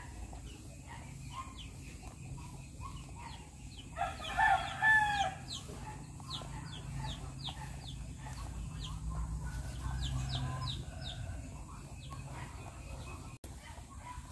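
A rooster crows once, about four seconds in, the loudest sound here. Around it, rabbits chew dry feed pellets with quick, crisp crunching ticks.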